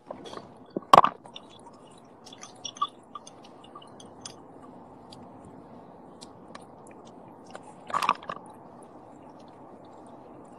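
Close-up crackling and rustling at the phone's microphone over a steady low hiss, with a louder knock about a second in and another near eight seconds.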